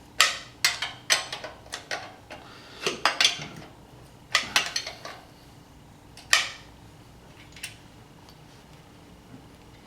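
Metal hand tool clicking and clinking on the carburetor mounting bolts as they are tightened down. The sharp clicks come in irregular bunches and thin out after about six and a half seconds.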